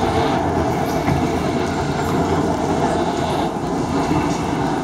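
Steady loud din of an arena crowd around a fight cage, many voices blurred into one continuous roar with no single voice standing out.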